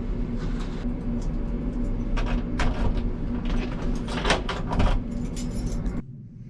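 Steady low rumble of a running vehicle, with scattered clicks and rattles on top; it stops abruptly near the end.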